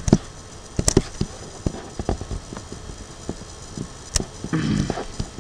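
Computer mouse clicking: a few scattered sharp clicks, the sharpest about a second in and about four seconds in.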